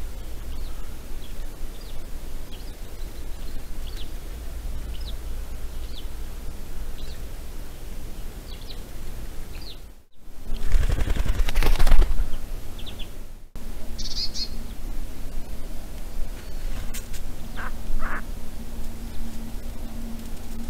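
Outdoor ambience with small birds chirping: short high chirps about once a second over a steady hiss. Between two abrupt cuts about halfway through, a loud rushing noise lasts about three seconds, and a few more bird calls follow near the end.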